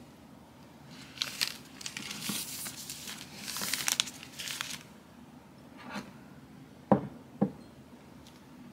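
A Twinings Peach Earl Grey tea-bag sachet torn open and crinkled by hand, rustling in bursts for a few seconds. Near the end come two light knocks about half a second apart, as a teacup is set on the wooden table.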